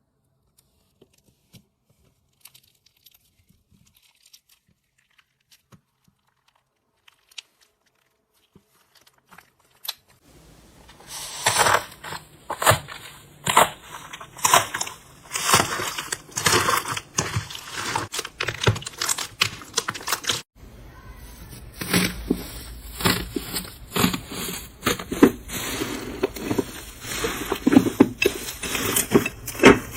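Crunchy slime worked by hand, making dense, irregular crackling and popping clicks. For the first third there are only a few faint clicks; then the crackling comes in loud, with a brief break just past the middle.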